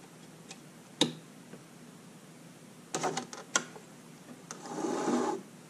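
Light clicks and taps from handling the CrowBox housing and hobby knife: one about a second in and a short cluster around three seconds. Near the end comes a brief scraping slide as the housing is shifted on the cutting mat.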